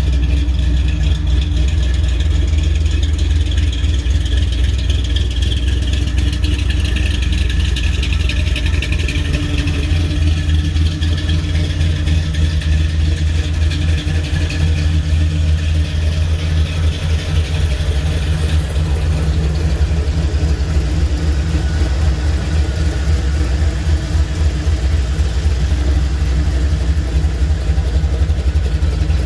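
A 1955 GMC pickup's V8 engine, rated at over 500 bhp, idling steadily and loud, low-pitched with no revving.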